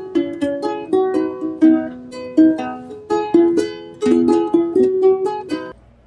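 Intro music: a bright melody of quick plucked-string notes, cutting off suddenly near the end.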